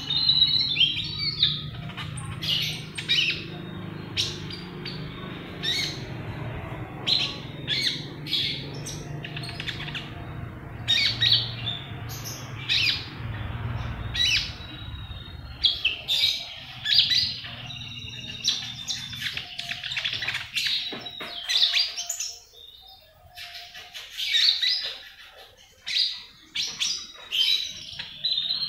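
Pet lineolated parakeet (konin) chirping: short, sharp, high calls, some single and some in quick runs, repeated throughout.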